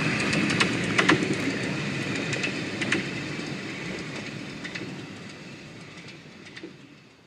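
Miniature steam train running away into the distance, its wheels clicking irregularly over the rail joints, the sound fading steadily until it is gone near the end.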